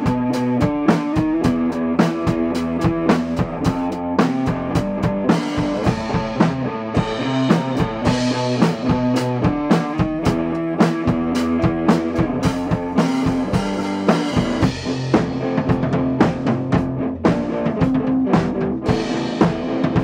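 Amplified Les Paul–style electric guitar and a drum kit playing together live: held guitar notes and chords over a busy beat of kick, snare and cymbal hits.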